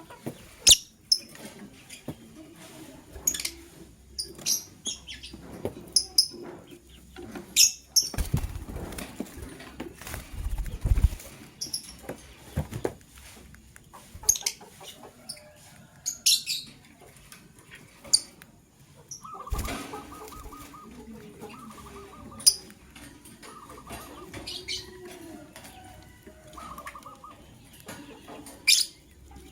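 Lovebirds giving short, sharp, high-pitched chirps at irregular intervals, with a stretch of wing-flapping about a third of the way in and some lower chattering calls later on.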